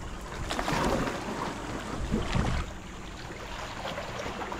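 Sea water splashing and sloshing around people in the shallows, with wind buffeting the microphone as a low rumble. There are a few louder splashes in the first half.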